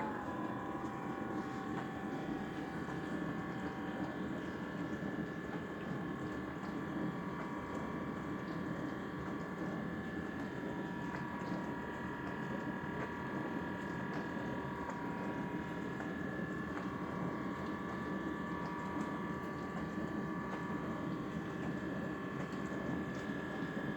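Dishwasher running mid-cycle: water churning with a steady hum, over which several high whining tones waver. It is an abnormal noise of unknown cause, from a machine that still washes well.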